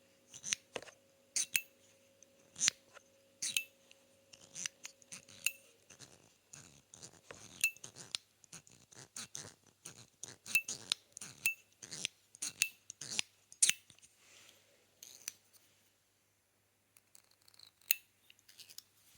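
Metilis metal fidget toy being worked by hand, giving sharp clicks with a short bright ring. The clicks come about once a second at first, then quicker and more irregular from about six seconds in, with a faint steady hum under the first few seconds.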